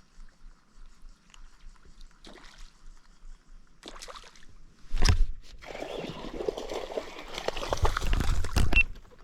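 Quiet at first, then about five seconds in a sudden loud splash and some three seconds of water sloshing and churning: a hooked traíra thrashing at the surface.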